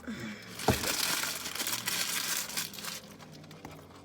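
A knock, then about two seconds of crinkling and rustling of something being handled, fading out about three seconds in.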